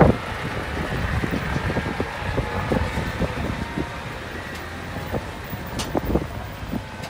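A heavy diesel engine running steadily at idle, with a faint high whine over it. Wind buffets the microphone, and there are a few light clicks.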